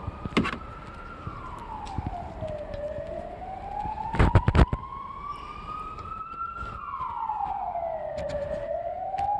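An emergency vehicle siren wailing, its pitch sliding slowly up and down in cycles several seconds long. Sharp clicks come about half a second in and in a loud cluster around four seconds in as the wiper blade and its adapter are pushed into place on the wiper arm.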